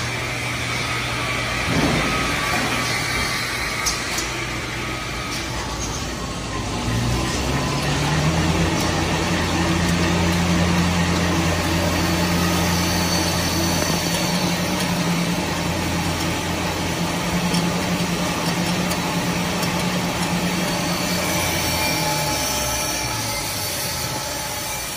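Tissue-paper converting machinery running: a steady mechanical hum. A deeper drone sets in about seven seconds in and drops away a few seconds before the end, and there are a couple of light knocks in the first few seconds.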